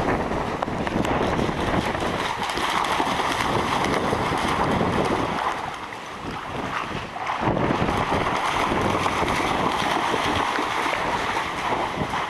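Water splashing as a dog runs and a person wades through shallow floodwater, with wind buffeting the microphone.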